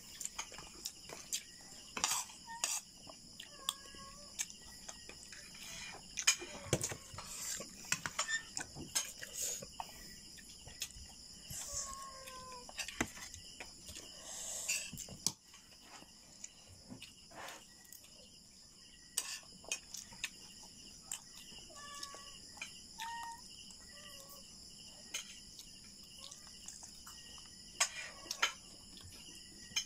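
A spoon clinking and scraping on a plate, in scattered sharp clicks, while someone eats rice and chicken. Crickets chirp steadily in the background, with a few short chirps from another animal now and then.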